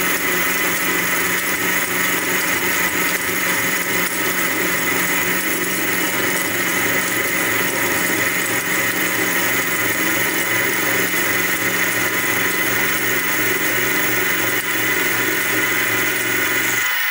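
Sieg SX2P mini-mill running steadily while its end mill side-mills a metal bar in a conventional (not climb) cut, a light cut taken a little at a time. The motor and cutter give a steady whine made of many tones, which cuts off suddenly near the end.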